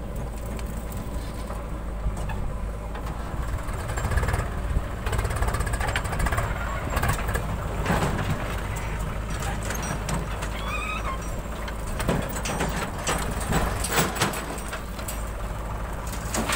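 JCB 3DX backhoe loader's diesel engine running steadily under load as the backhoe digs and swings, with scattered knocks and clatter of soil and stones, heaviest in the second half as a bucketful is dumped into the tractor trolley.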